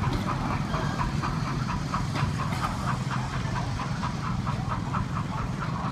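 Steam-hauled passenger train rolling past: a steady low rumble of wheels on the track with a rapid, even clicking.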